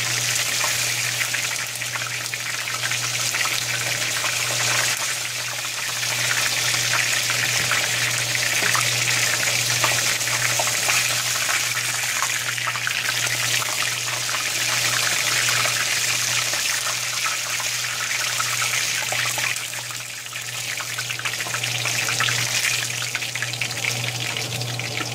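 Chicken wings deep-frying in hot oil in a cast iron skillet: a steady sizzle and crackle, over a constant low hum.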